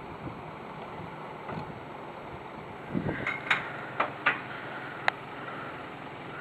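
Steady road and wind noise from a moving vehicle, with a low thump about three seconds in and then four or five sharp clicks and knocks over the next two seconds.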